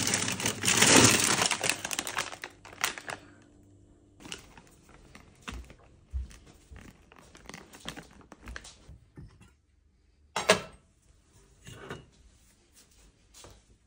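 Plastic freezer bags rustling and crinkling loudly as a bag of frozen dumplings is pulled from a packed freezer, then softer handling clicks, and a sharp metal clank of stainless steel cookware about ten seconds in.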